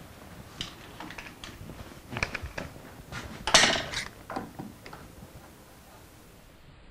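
One-handed bar clamps being picked up, adjusted and set in place: a string of light clicks and clatters, with one louder rattle about three and a half seconds in.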